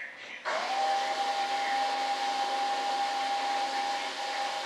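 Electric fan heater switching on about half a second in: its blower spins up quickly to a steady whine over a rush of blown air.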